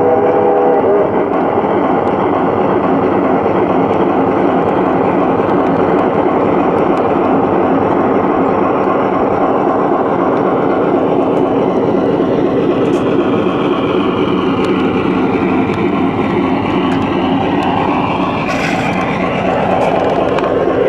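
Large-scale garden railway train rolling along the track, heard from a car coupled right behind the caboose: a steady, loud rattling rumble of wheels on rail. A brief chord of steady tones stops about a second in.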